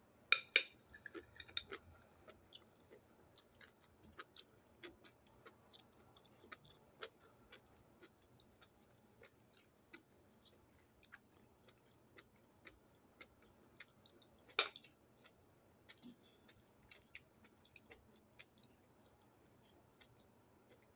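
A person chewing a mouthful of ramen noodles and enoki mushrooms: soft, scattered wet clicks and smacks, with a louder cluster right at the start and one sharper sound about two-thirds of the way through.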